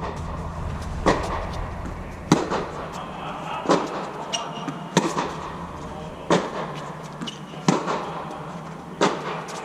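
Tennis ball struck back and forth in a rally on an indoor court: a sharp racket hit about every 1.3 seconds, each with a short echo, over a steady low hum.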